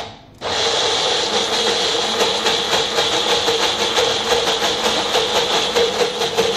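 Small Shimono personal bullet blender switched on about half a second in. It then runs at full speed, grinding soaked urad dal into a coarse batter, with a steady whir and a fast rattling texture.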